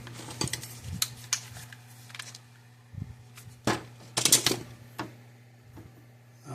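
Irregular clicks and knocks of small hard parts being handled and set in place on a workbench, with a few sharper knocks about three to five seconds in, over a steady low hum.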